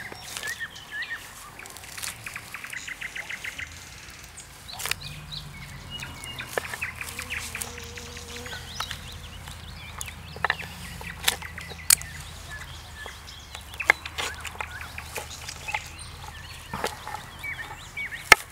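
A hunting knife cutting raw beef on a wooden cutting board, with several sharp knocks of the blade against the board; the loudest comes near the end. Birds chirp and trill in the background.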